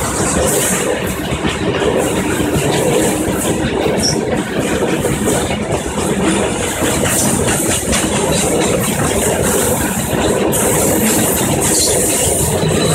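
Long goods train's covered freight wagons rolling past close by: a loud, steady rumble and rattle of steel wheels on the rails.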